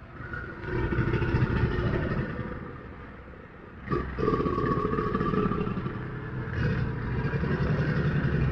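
A large animal's rough, growling call in two long stretches, fading about three seconds in and starting again about four seconds in.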